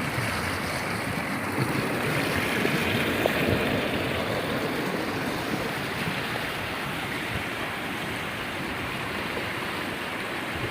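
Steady rush of flowing rainwater, an even noise without distinct splashes or strikes.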